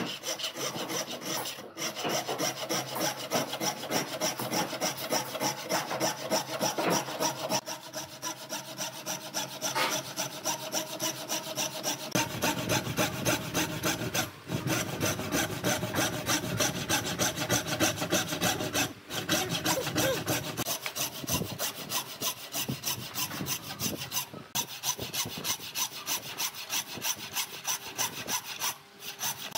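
Wooden-framed hand turning saw with a thin, narrow blade cutting a curve through a thick hardwood tabletop: steady rhythmic back-and-forth strokes, broken by a few brief pauses.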